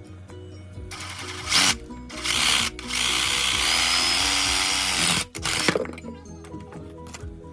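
A power tool running in two short bursts, then steadily for about two seconds before stopping, over background music.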